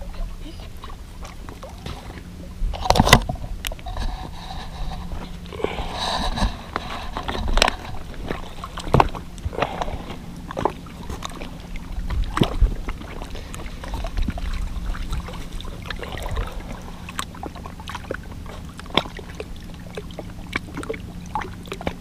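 Low wind rumble on the microphone with scattered knocks and clicks from footsteps and handling on shoreline rocks, as a small flathead catfish is carried to the water's edge to be released.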